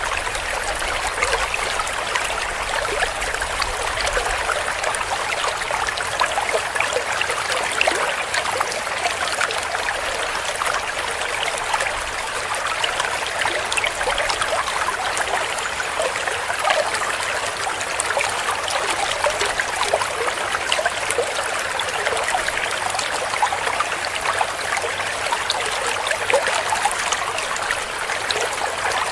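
A small clear stream running over rocks: steady splashing and gurgling of falling water.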